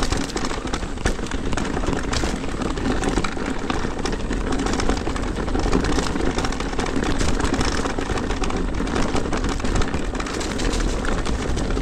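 Wind rushing over the microphone and an e-mountain bike's tyres rolling fast over a rough, overgrown trail, with many small knocks and rustles from the bike and brushing plants. No rattle comes from the newly fitted RockShox Deluxe Select+ rear shock.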